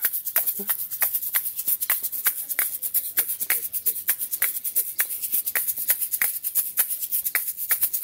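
A pair of hand shakers shaken in a fast, even rhythm of about five rattling strokes a second.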